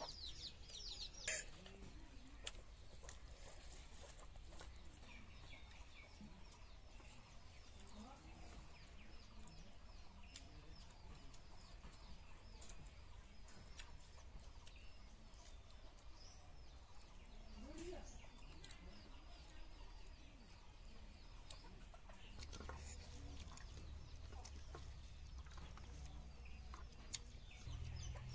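Domestic hen clucking and her chicks peeping, faint; the quick, high chick peeps come thickest in the first second or so, then thin out.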